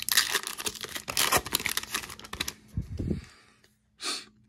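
Foil wrapper of a trading card pack being torn open and crinkled, a dense run of crackles for about two and a half seconds. A soft thump follows, then a short rustle near the end.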